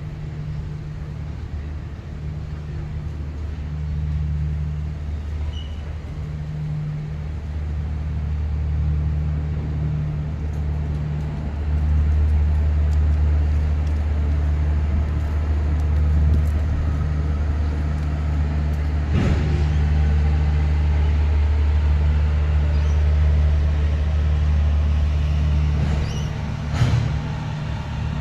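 Two BL class diesel-electric locomotives working under load with a container train, a deep steady engine drone that grows louder about halfway through. Two sharp clanks come later on.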